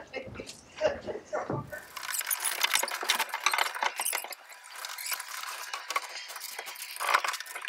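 A brief voice, then, about two seconds in, a time-lapse's sped-up work sound of shed roof framing: a dense, rapid patter of high clicks and clinks with no low end.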